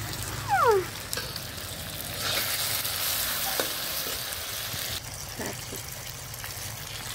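Chicken pieces sizzling in an iron kadai as a steel slotted spatula stirs them, with a few clinks of the spatula on the pan. The sizzle swells for a few seconds in the middle, and a short falling squeal sounds near the start.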